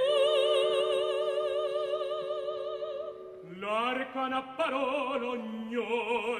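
Opera singing: a mezzo-soprano holds a long high note with wide vibrato over a sustained orchestral chord. The chord stops about three and a half seconds in, and a tenor sings a short recitative phrase.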